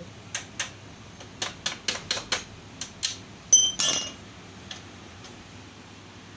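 Metal hand tools clinking on a concrete garage floor: a quick run of sharp clicks and taps, then a louder metallic clatter with a brief ring about three and a half seconds in, as a tool is picked up or put down among the loose parts.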